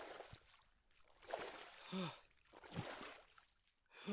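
A man breathing hard and out of breath: several heavy exhales about a second apart, some voiced with a short falling pitch.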